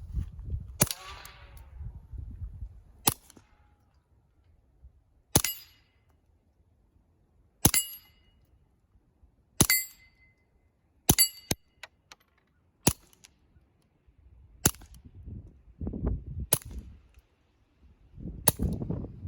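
Suppressed .22 LR shots through an AAC Prodigy 22 suppressor: about ten sharp, short cracks fired one to two seconds apart, several followed by a brief metallic ring.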